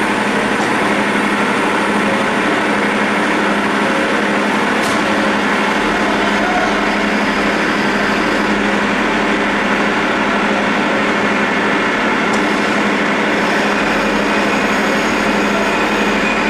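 CNC roll-turning lathe cutting grooves into a large metal roll: a steady machine drone with a constant hum under a hiss of cutting, and a faint tick twice.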